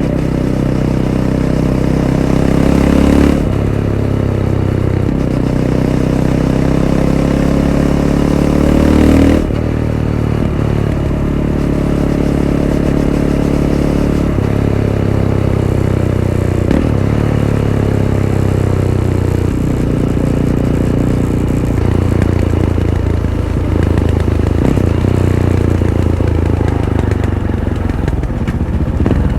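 Fantic Caballero 500's single-cylinder engine through its Arrow exhaust, riding under load: the revs climb and cut off sharply twice, about three seconds in and again about nine seconds in, then rise and fall irregularly with the throttle.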